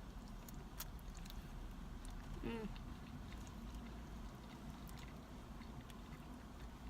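Quiet eating sounds at a meal of shrimp pasta: a few faint small clicks, like a fork on a container, over a low steady hum, with one brief voiced murmur about two and a half seconds in.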